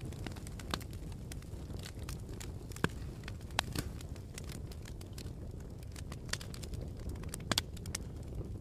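Wood fire crackling in a fireplace: a steady low rumble of burning with scattered sharp pops and snaps, a few louder ones about three seconds in and again past seven seconds.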